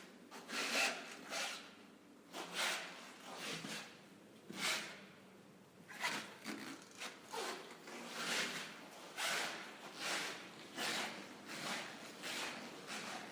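Footsteps of rubber-soled shoes on a marble floor: a steady walk of soft scuffing, rubbing steps, with a brief lull in the middle before the walking picks up again.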